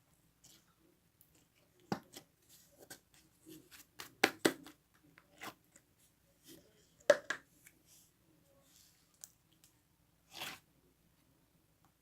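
Slime being handled: a scattering of sharp pops and crackles, the loudest in a quick cluster near the middle and one single pop a little later, with a brief hissy squelch near the end.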